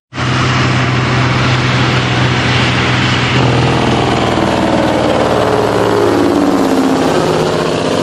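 Diesel semi truck running loud as the tractor-trailer drives past. About three and a half seconds in, its engine note starts to fall steadily as it goes by and pulls away.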